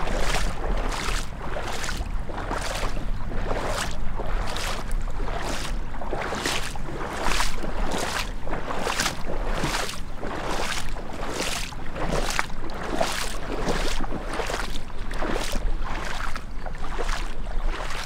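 Gumboots wading through floodwater on a road, a splash and slosh with every stride, about two steps a second.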